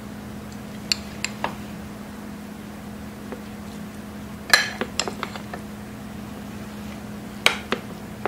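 Metal spoon clinking and scraping against ceramic bowls as rice is scooped into a bowl of soup and stirred in: scattered light clinks, with the loudest cluster about four and a half seconds in, over a steady low hum.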